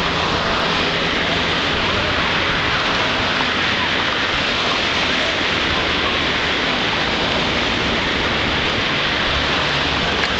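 Surf breaking on a sandy beach: a steady, unbroken wash of noise that does not rise or fall.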